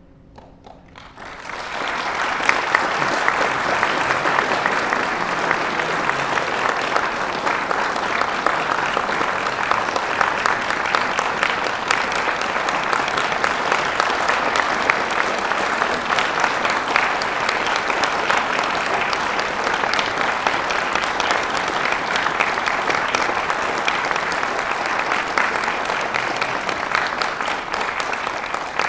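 Audience applauding steadily in a hall, breaking out about a second in over the last fading notes of a grand piano and thinning near the end.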